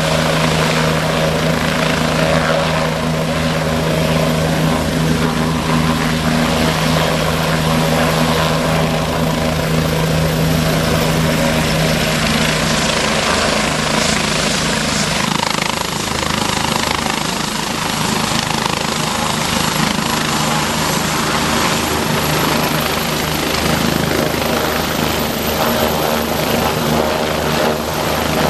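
Bell 429 twin-turbine helicopter hovering low over a helipad and setting down on its skids, its rotor and turbines running loudly and steadily. The heavy low rotor tone eases about halfway through once it is down, and the rotor keeps turning on the ground.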